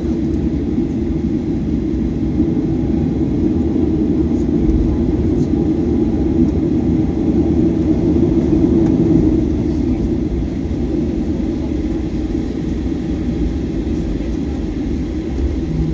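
Cabin noise of a Boeing 737-800 taxiing after landing: a steady rumble of its CFM56-7B engines near idle and the airframe rolling on the taxiway, heard inside the cabin at a window seat over the wing. The rumble swells slightly about halfway through.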